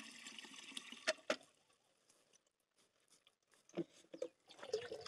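Faint trickle of water into a plastic drum as the flow from the filling pipe dies away after the pump is switched off, with two small knocks about a second in, then near silence.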